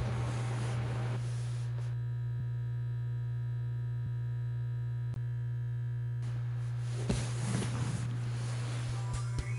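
Steady low electronic drone, joined by a chord of held synthesizer tones from about two seconds in until about six seconds, with a brief swell of noise near the end.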